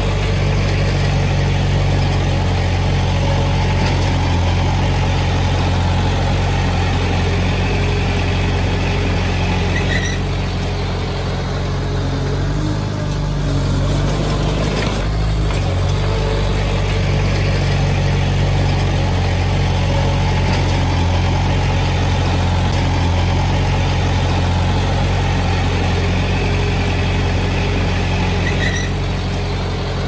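Small crawler bulldozer's diesel engine running steadily while the machine works, pushing loose soil.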